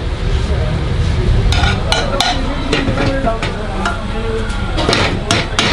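Cooks working at a street-food stall: a spoon scraping as sauce is spread on rolled-out paratha dough and the dough is worked on a marble board. A few sharp clinks and knocks of utensils come in two clusters, about a second and a half in and again near the end, over steady low background noise.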